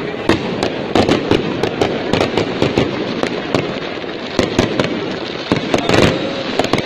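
Fireworks going off in a rapid, irregular string of sharp bangs and crackles, several a second, over a continuous din.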